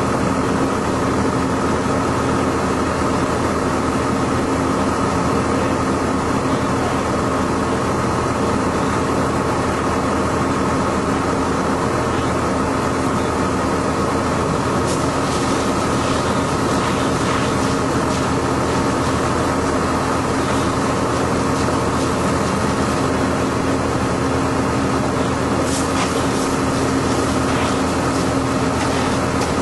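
An engine running steadily at an even pitch, with a few short clicks or crackles around the middle and again near the end.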